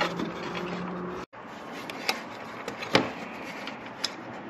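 A faint steady low hum for about a second, a brief dropout, then a few sharp clicks about a second apart as motorcycle body panels, wiring and a hand tool are handled.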